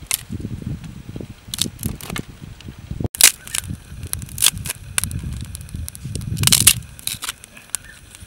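Dry twigs snapped by hand, then a small stick fire crackling as more sticks are pushed into it: scattered sharp cracks over a low rumble, with the loudest cracks about three seconds in and again late on.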